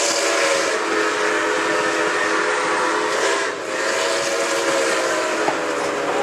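Steam locomotive's chime whistle blowing a long chord, with a short break about three and a half seconds in before it sounds again, over the rolling noise of the train.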